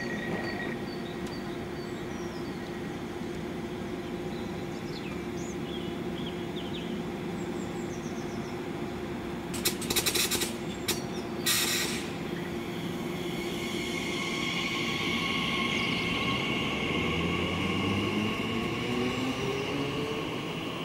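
Class 345 electric multiple unit standing with a steady electrical hum, with two short loud bursts of hiss about ten and twelve seconds in. It then pulls away, its traction motors whining in several rising tones as it accelerates.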